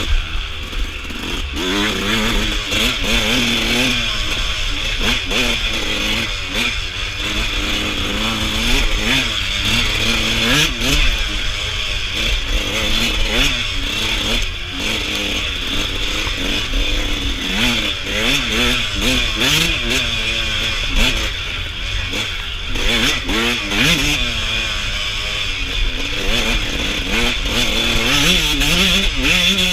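Suzuki RM125 two-stroke dirt bike engine being ridden hard, revving up and down over and over as the throttle is worked, with a steady hiss of wind and riding noise behind it.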